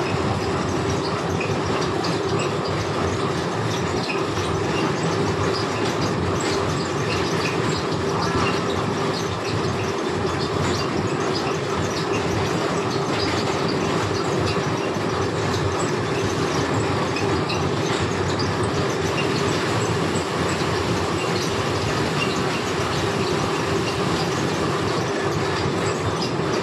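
Fabric checking machine running steadily with fabric feeding through it: a continuous mechanical din with a steady hum and fine, fast clattering.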